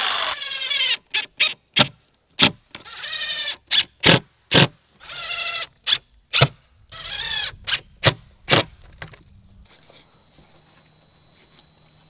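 DeWalt cordless driver driving screws into pressure-treated pine gate boards: about a dozen short trigger bursts and three longer runs of under a second, each with a rising motor whine, separated by abrupt silences. The tool work stops about ten seconds in, leaving a faint steady outdoor background.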